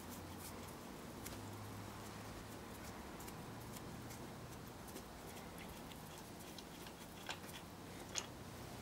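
Faint, scattered light clicks and ticks of hands handling the crankshaft and main bearing caps in a stripped Daewoo Lanos engine block, with two sharper clicks near the end.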